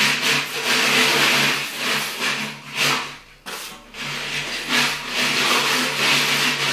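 Steel plastering trowel scraping wet plaster across the wall and off a hawk, in repeated rasping strokes with a brief pause a little past halfway.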